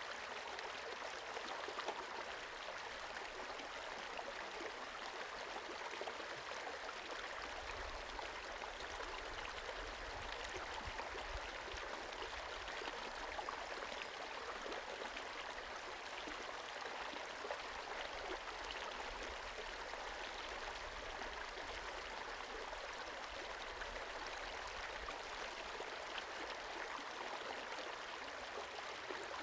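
Small forest creek running steadily, a continuous rush of water over its bed.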